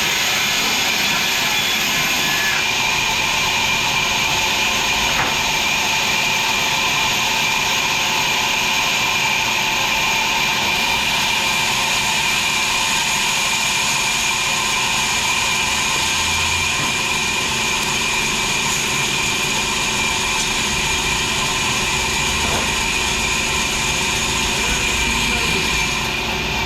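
Sawmill machinery running steadily: a loud, constant mechanical drone with a steady high whine on top.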